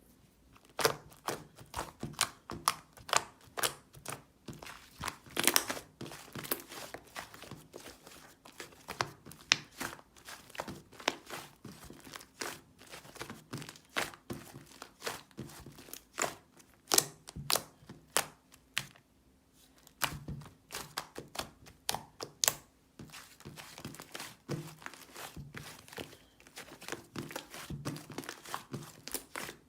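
Slime being squished and pressed by hand, giving a dense, irregular run of sharp clicks and pops from trapped air, with brief pauses.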